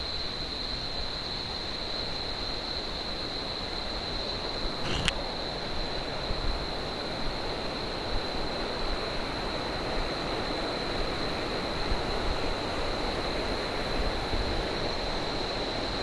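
Steady rush of waterfall cascades and fast river water, with a constant high-pitched insect drone over it. A single sharp click about five seconds in.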